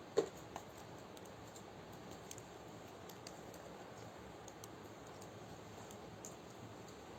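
Faint scattered clicks and crackles over a steady hiss, with one sharp knock just after the start and a smaller one about half a second later.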